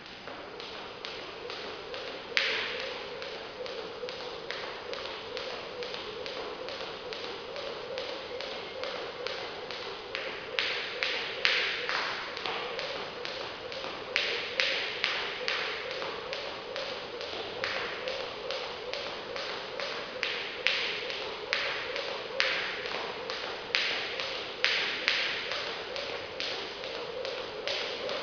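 Jump rope turning steadily, the rope tapping the floor and feet landing about two to three times a second, over a steady hum.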